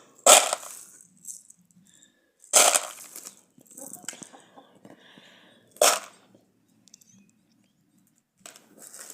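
Dry green beans clattering as they are sorted by hand: four sharp rattling clatters a few seconds apart, with fainter scattered rattling of loose beans between them.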